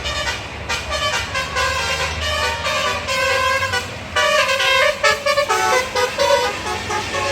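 Bus telolet horn of the basuri type playing a quick multi-note tune, with the notes switching rapidly, over the low rumble of bus engines. The horn gets louder about four seconds in.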